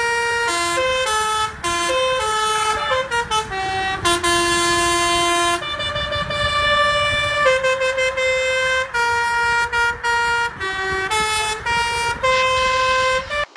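Telolet horn, a multi-tone musical air horn on a truck, playing a melody of quick stepped notes, with one longer low note held for about a second and a half some four seconds in.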